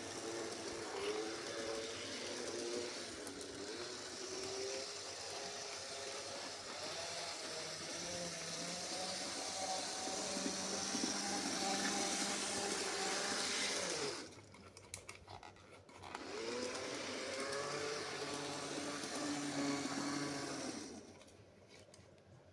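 Model train locomotive's small electric motor and gearing running with a whine whose pitch rises and falls with speed. It winds down and stops about fourteen seconds in, starts up again with a rising whine two seconds later, and stops near the end.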